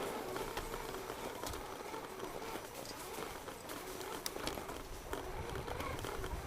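Axial SCX10 RC crawler's electric motor and drivetrain whining as it drives through snow, the pitch wavering up and down with the throttle, with scattered sharp clicks.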